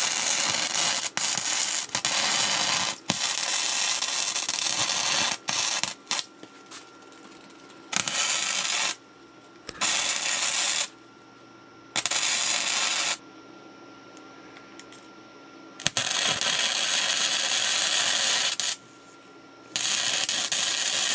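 An air tool run in eight trigger bursts of one to three seconds each, a loud hissing noise that starts and stops abruptly, with quieter gaps between bursts.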